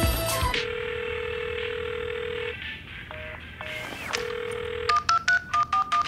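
Telephone dial tone sounding steadily for about two seconds, breaking off and returning briefly, then a quick run of push-button touch-tone beeps near the end as a number is dialled.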